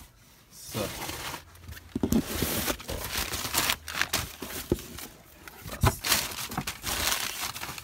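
Crumpled newspaper packing being unwrapped and pulled apart by hand: paper crinkling and rustling, with a few sharp crackles.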